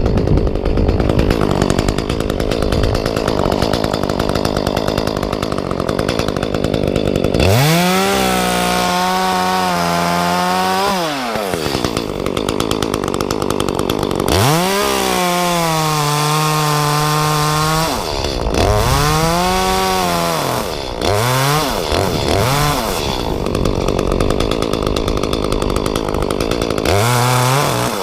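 Two-stroke Echo chainsaw running, revved up to a high steady pitch and held for a few seconds twice, then given several shorter blips up and down, with a rougher lower running sound between the revs.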